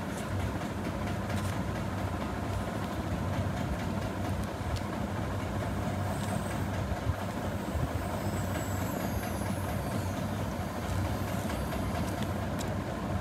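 Steady low mechanical hum, like an engine or motor running, with faint high whining tones sliding downward partway through.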